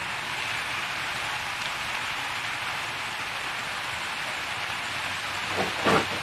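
Steady, even hiss of falling, splashing water. Near the end a short voice-like sound briefly rises above it.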